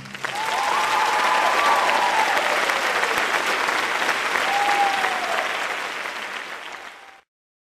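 Theatre audience applauding, a dense mass of clapping, with a couple of voices calling out over it. The applause fades over the last seconds and cuts off abruptly near the end.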